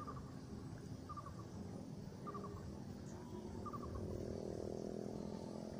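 An animal call of three or four quick chirps, repeating about once a second, over a low outdoor rumble; a low steady hum joins about four seconds in.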